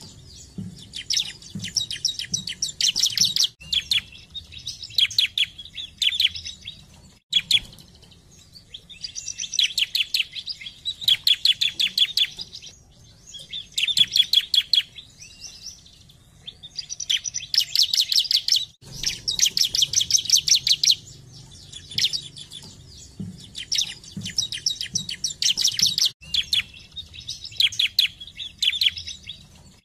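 Bar-winged prinia (ciblek) singing: phrases of fast, rattling high trills, each a second or two long, repeated with short pauses between them.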